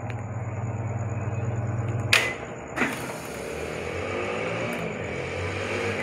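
Haier top-loading automatic washing machine running in spin-only mode, its drum spinning with a steady low motor hum. A little after two seconds in come two sharp knocks less than a second apart, then the spinning goes on.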